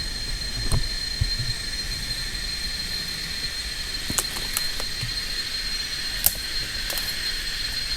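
Forest insects keeping up a steady, high-pitched drone, with a few scattered light clicks and knocks.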